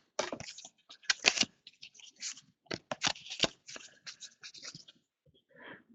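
2015-16 Hoops basketball trading cards being handled and slid across one another while a pack is flipped through, giving a string of light scrapes and flicks at irregular intervals.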